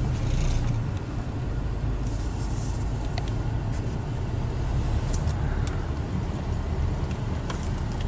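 Car engine and tyre rumble heard from inside the cabin while driving slowly, a steady low drone with a few light clicks.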